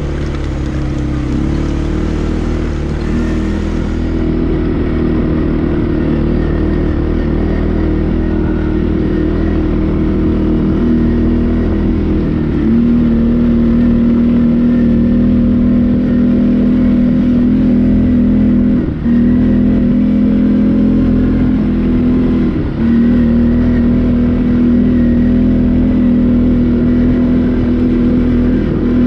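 CFMoto ATV engine running steadily under way. Its note steps up in pitch about twelve seconds in and briefly drops twice later, as the throttle is eased off and reopened.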